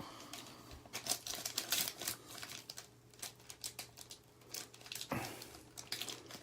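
A pack of Panini Prizm football cards being torn open by hand: the wrapper crinkles and crackles in a quick irregular run of small rustles and clicks.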